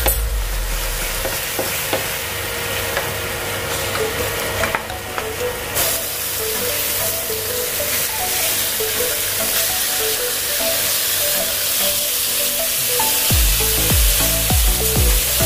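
Ribeye steaks sizzling as they sear in a nonstick pan, with metal tongs clicking as they turn them. Background music plays under it, and its beat comes in near the end.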